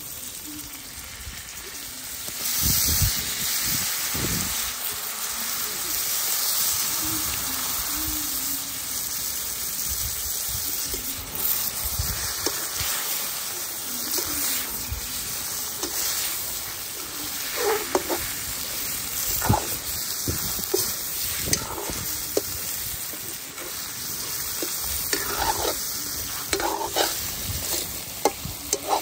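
Curry ingredients frying in hot oil in a pan, sizzling steadily. A spatula scrapes and clacks against the pan as they are stirred, more often in the second half.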